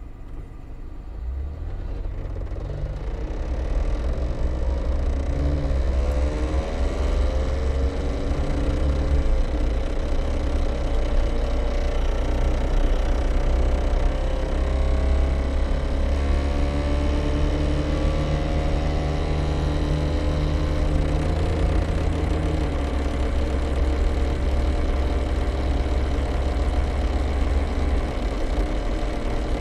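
Daihatsu Terios Kid pulling away and driving, with low engine and road rumble and a faint whine that climbs in pitch as the car gathers speed, then holds steady. The noise comes only when the car is moving, not when the engine is revved standing still, and the owner suspects the drive shaft or the front differential.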